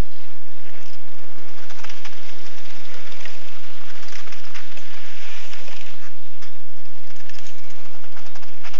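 Outdoor noise: a steady rushing hiss with many irregular clicks and crackles.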